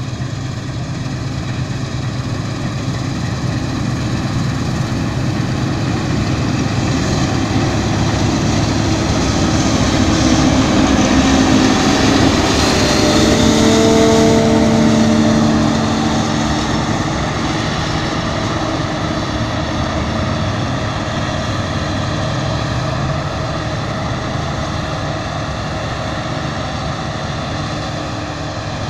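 Claas Lexion 450 combine harvester running and harvesting with a steady machine drone. It grows louder to a peak about halfway through, then eases off, as if passing close by.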